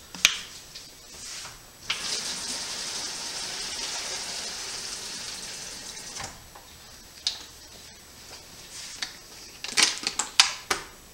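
Kitchen tap running for about four seconds, filling a plastic water bottle with tap water. A few sharp clicks and knocks from handling the bottle come near the end.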